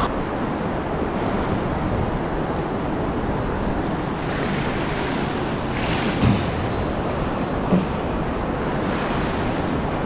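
River rapids running high and fast, rushing steadily, with wind buffeting the microphone. Two brief low bumps come about six and eight seconds in.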